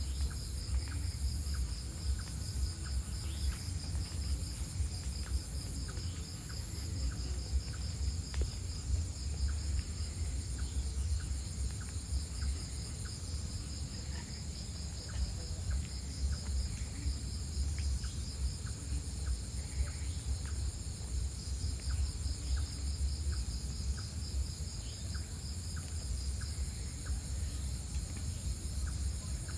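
Crickets and other insects trilling in a steady, high, pulsing chorus, with short ticks repeating about every half second and a low rumble underneath.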